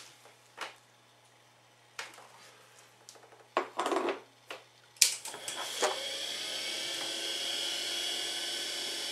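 Metal clinks and knocks as a steel chain sprocket is handled and taken off a washing machine motor's shaft. About halfway through, the washing machine motor starts with a sharp click, rises in pitch as it spins up, and then runs steadily with a whine and hiss.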